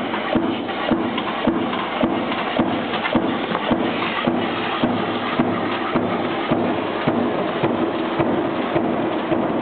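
Power press with a die stamping copper key blanks from coiled strip, running continuously: an even rhythm of sharp strokes, roughly two and a half a second, over steady machine noise.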